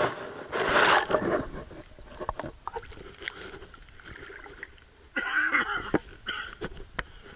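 Water splashing and streaming off a waterproof camera as it is lifted out of a lake: a loud splash right at the start, then scattered drips and small clicks. A short voice-like sound comes about five seconds in.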